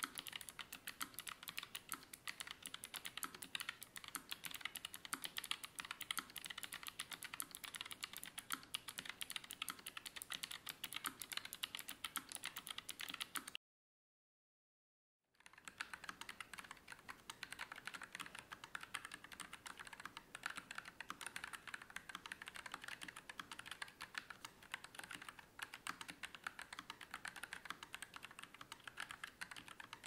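Continuous fast typing on a NuPhy Air96 low-profile mechanical keyboard, first on Gateron Blue 2.0 clicky switches. After a silent break of about two seconds just under halfway, the typing resumes on the second board, Gateron Brown 2.0 tactile switches, with a duller, lower click.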